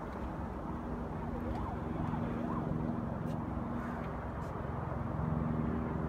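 Distant road traffic, a steady low rumble with a deeper drone swelling twice. A faint tone rises and falls a few times about a second and a half in.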